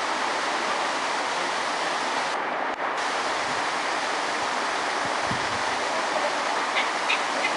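Steady rushing noise, even and unbroken, like running water or wind, with no distinct events standing out.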